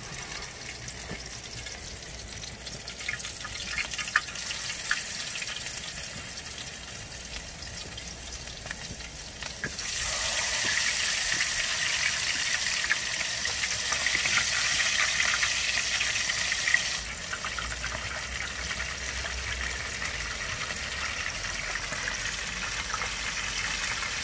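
Battered stinky tofu deep-frying in a pan of hot oil: a steady sizzle with small crackles. It grows louder about ten seconds in and eases again some seven seconds later.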